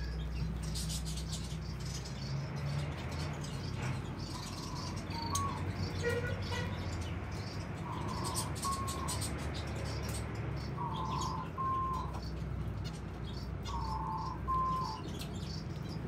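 A flock of zebra finches chirping with many short, high calls. A repeated two-part whistled call sounds about every three seconds, over a steady low rumble.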